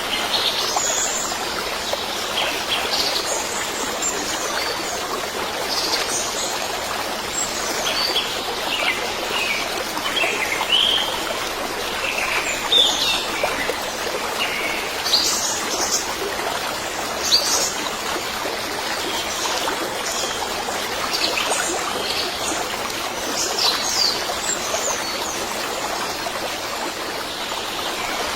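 Many short bird chirps and calls over the steady rush of a stream.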